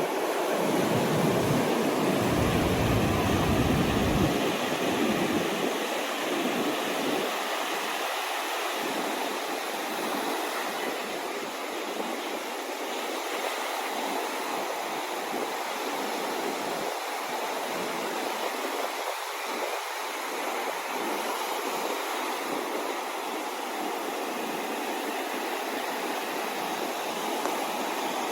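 Ocean surf washing steadily. It has a heavier low rumble for the first few seconds, then settles into an even wash.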